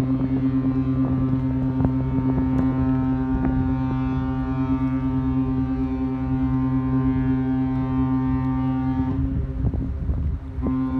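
A vessel's steady, deep, pitched drone with many overtones, like a ship's diesel engine running at constant speed, with a few short knocks over it. Near the end the drone cuts out for about a second and a half, then comes back at the same pitch.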